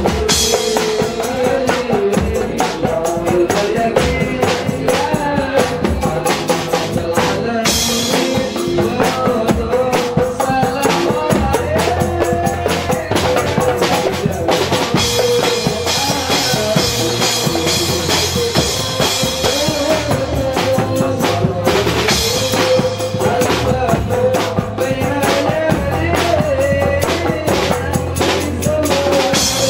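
Marawis ensemble playing a sholawat: wooden barrel hand drums beating a steady, driving rhythm under a male lead voice singing through a microphone.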